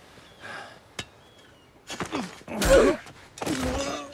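Fight scuffle: a sharp click about a second in, then a heavy thump and loud gasping, grunting cries of effort as a man is knocked to the ground.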